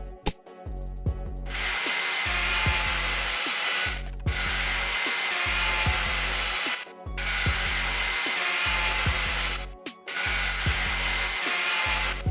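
Power tool running in four bursts of about two and a half seconds each, with short pauses between, a steady hissing whir with a faint whine, over background music.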